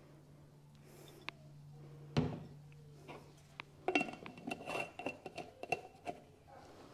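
A glass Mason jar set down on a counter with one sharp knock, then a plastic lid screwed onto a glass jar: a run of clicks and clinks with the glass ringing for about two seconds.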